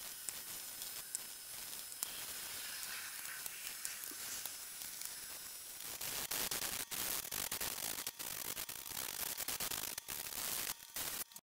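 A pad wiping vinegar-and-steel-wool stain onto carved kauri pine: a soft rubbing hiss that turns louder and scratchier about halfway through, with a brief dropout near the end.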